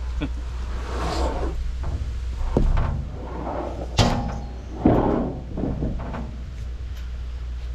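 Knocks and scraping of freshly sawn wooden slabs being handled, with two sharp bangs about four and five seconds in, over a steady low hum.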